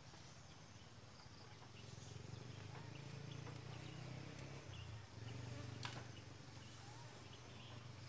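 A flying insect buzzing close by, its low drone swelling in the middle, dropping briefly and coming back before easing off. A single sharp click about six seconds in, with faint bird chirps behind.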